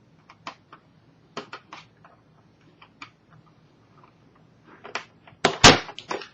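Small clicks and taps of hands and tools working on a laptop's screen assembly, with a louder rattle of clicks about five and a half seconds in.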